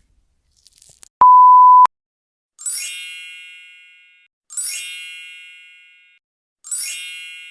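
Edited-in sound effects: a loud, steady beep lasting under a second, then three identical bright chimes about two seconds apart, each ringing out and fading slowly.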